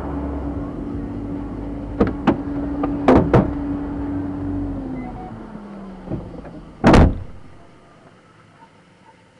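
Police patrol car interior: a few sharp clicks and clunks, then a loud car-door thump about seven seconds in as the trooper gets out. Under it runs a steady hum that slides lower in pitch about five seconds in.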